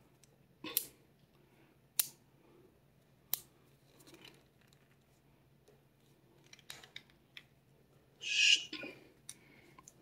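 Number wheels of a four-digit bike cable combination lock clicking as they are turned one notch at a time: three sharp clicks a little over a second apart, then lighter ticks, and a short hissing rustle near the end.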